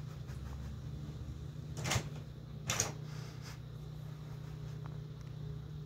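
Printer working: two brief mechanical swishes, the second about a second after the first, over a steady low hum.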